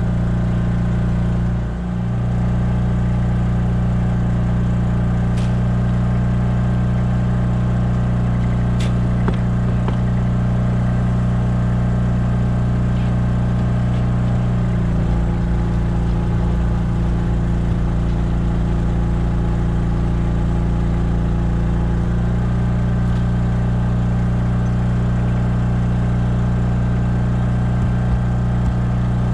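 Small engine, the generator powering the boat's LED flood lights, running steadily with an even hum; its note changes for several seconds past the middle, then returns. A couple of faint clicks early on top.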